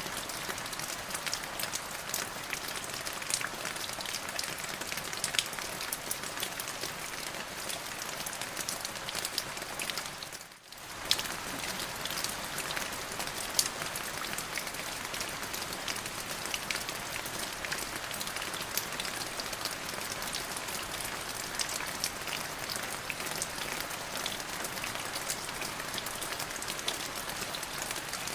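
Steady rain falling on a hard surface, a continuous hiss dotted with many distinct drop ticks. It briefly fades almost away and comes back a little over ten seconds in.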